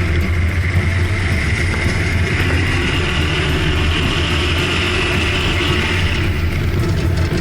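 Volvo 245's engine running steadily, with an even low hum. A higher whine builds about two seconds in and fades out about six seconds in.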